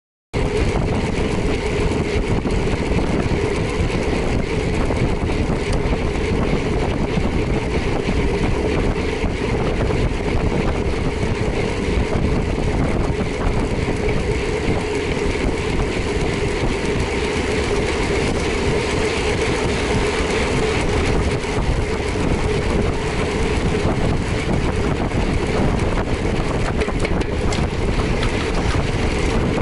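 Steady engine drone and wind rush of a vehicle under way on a ride, cutting in abruptly a moment in after silence.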